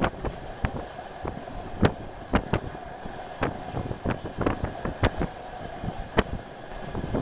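Ride inside a DR1AMv diesel train under way: a steady running drone broken by irregular sharp clicks and knocks from the running gear and carriage.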